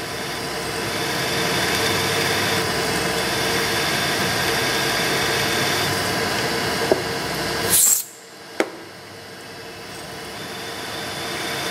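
Machine spindle running steadily as a small drill bit cuts into a broken zinc-plated M4 screw in a cast aluminium router base. About eight seconds in there is a brief sharp noise, then the sound drops abruptly and slowly builds back up.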